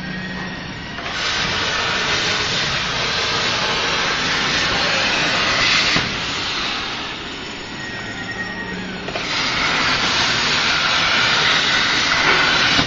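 CNC plasma cutter's arc running, a loud steady hiss. It grows louder about a second in, eases off after about six seconds, and grows louder again near the end.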